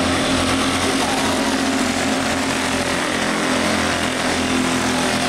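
Several small racing kart engines running at speed together, a steady buzzing drone of overlapping engine notes as the karts circle the track.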